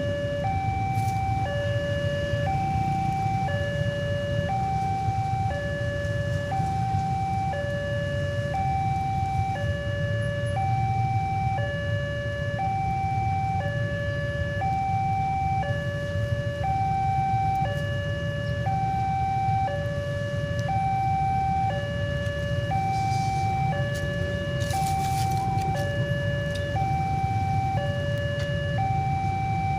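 Electronic two-tone warning alarm alternating steadily between a high and a low note, about one note a second, over a steady low rumble. A brief hiss cuts in near the end.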